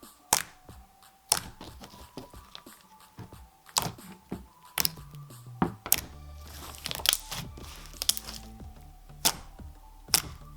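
Thick slime being pressed and squished by hand, giving sharp popping clicks at uneven intervals of about a second, over quiet background music.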